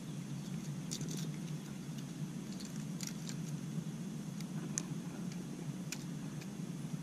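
Faint scattered clicks and light handling noises as gloved hands work at a largemouth bass's mouth, over a steady low hum.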